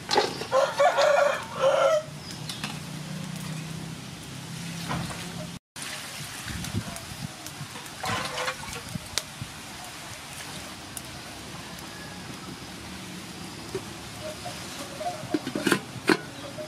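A rooster crows loudly about half a second in, with a shorter call around eight seconds. Near the end come a couple of sharp metallic clanks as an aluminium lid is set on a cooking pot.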